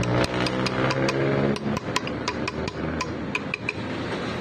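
Rapid light taps on metal, each with a short ringing note, about four a second, stopping shortly before the end. A low steady hum sits under the first second and a half.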